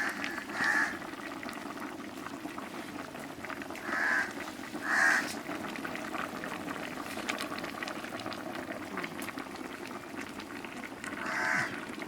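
Beef trotter and bone curry boiling steadily in a pot. A few short louder sounds break in: once near the start, twice around the middle, and once near the end.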